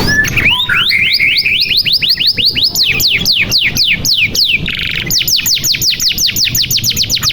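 Domestic canary singing: long rolls of rapid whistled notes, each sliding down in pitch, repeated several times a second, with a short buzzy trill about five seconds in before the falling notes resume at a quicker pace.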